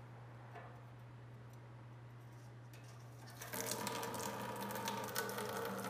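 Old gasoline starting to drain from the bottom drain hole of a 1969 Allis-Chalmers forklift's steel fuel tank once the crusted sediment blocking it is poked through: about three and a half seconds in, a thin stream begins splashing steadily into a plastic bucket.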